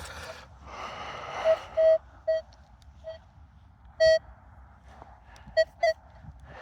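Metal detector giving short beeps of one steady pitch, seven of them spread irregularly, the longest about four seconds in, as it is passed over a clump of dug soil holding a metal target. Soil crumbling and rustling about a second in, as the clump is broken up by hand.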